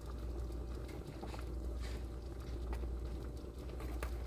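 Pot of chicken broth at a boil, bubbling steadily, with scattered light ticks and plops as dumplings go in.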